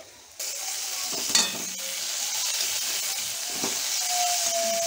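Chopped vegetables with tomato sizzling steadily in oil in a metal kadai as they are stirred with a flat spatula. The spatula knocks once on the pan about a second and a half in.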